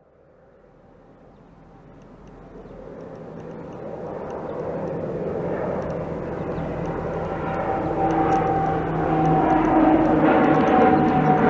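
Boeing C-17A Globemaster III's four turbofan jet engines approaching, a steady whine and rumble that grows steadily louder.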